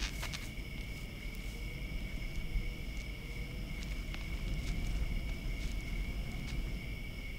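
Crickets chirring steadily over a low background rumble, with a few light footsteps crunching on straw now and then.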